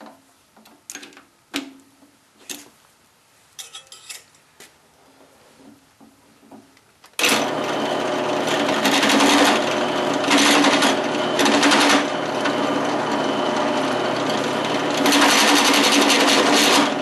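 Scattered metallic clicks and knocks as a chamfering bit is fitted in the drill press. About seven seconds in, the drill press starts suddenly and runs steadily while the chamfering bit cuts the top edge of a 1/4-inch hole in steel plate, with several louder stretches of cutting noise.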